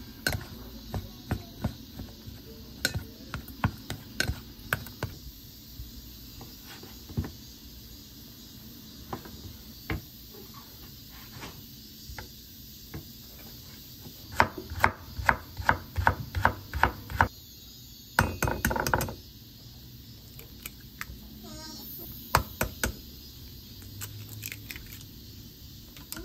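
A plastic rice paddle scraping and tapping against a stainless steel bowl as rice is mixed, with scattered clicks. About halfway through, a knife chops ham into strips on a wooden cutting board in a quick run of sharp strokes, about four a second, followed by a short scraping sound.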